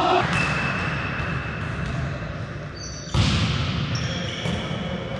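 Volleyball being struck during play, with sharp hits just after the start and a louder one about three seconds in, each echoing around a large sports hall.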